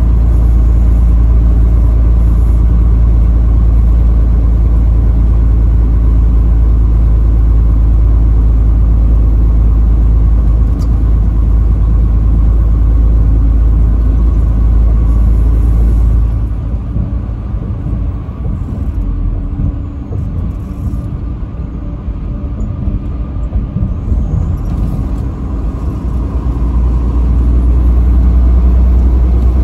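Steady low rumble of a vehicle's engine and tyres at highway speed. It drops and turns uneven about halfway through, then builds back up near the end.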